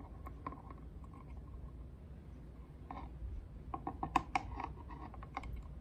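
Faint small metallic clicks and ticks of needle-nose pliers and a steel washer against the V-wheel bolt and gantry plate as the washer is slipped into place, most of them coming in a cluster about three to four and a half seconds in.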